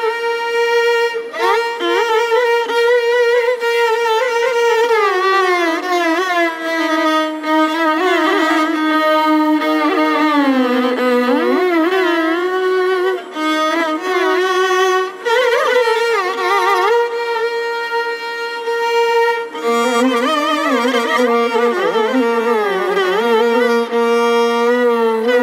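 Two violins playing Carnatic music in duet, in the raga Shubapantuvarali. Held notes are shaped with wavy oscillating ornaments and slides between pitches.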